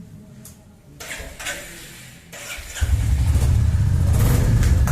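The single-cylinder engine of a 2021 Royal Enfield Classic 350 starts a little over halfway through and settles straight into steady, loud running.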